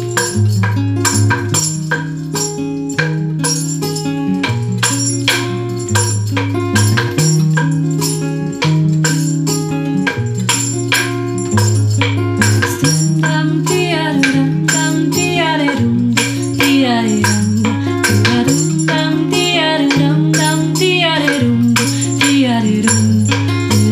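An acoustic guitar song with a devil stick used as percussion: quick, rhythmic clicks and taps as the handsticks strike the stick. About halfway through, a voice starts singing over it.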